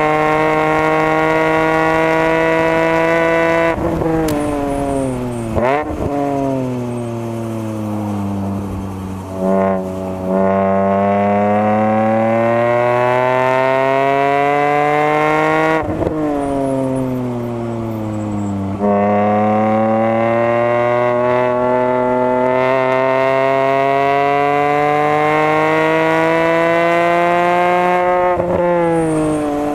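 BMW E46 M3's 3.2-litre S54 straight-six heard from inside the cabin, driven hard on track. The engine note climbs steadily through long full-throttle pulls, falls away when the driver lifts and brakes for corners, and jumps in short rev spikes on the downshifts about six and ten seconds in.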